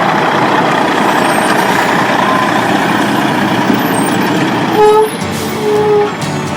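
Heavy vehicle engine running steadily, with two short horn toots near the end.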